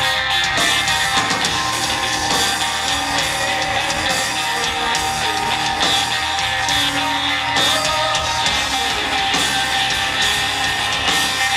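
A rock band playing live at full volume, with distorted electric guitars and drums, heard from inside the crowd.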